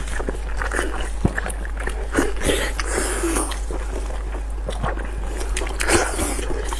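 Two people biting and chewing soft blood sausage coated in spicy sauce: close-up wet smacking and squelching with many small clicks.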